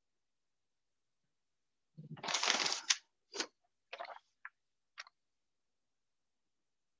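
Desk handling noise: a brief rustle about two seconds in, followed by four short taps or clicks.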